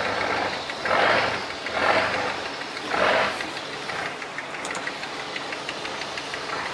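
Rice boat's Komatsu turbo diesel engine running at low speed as the boat comes alongside the bank, a steady low hum. Over the first three seconds a swell of noise rises and falls about once a second, then it settles.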